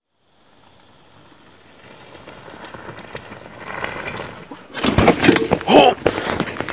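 Tyres of a four-wheeled adaptive downhill mountain bike rolling over a dirt forest trail, growing louder as it approaches. About five seconds in, loud crunching and rattling close by as it passes, with a brief voice.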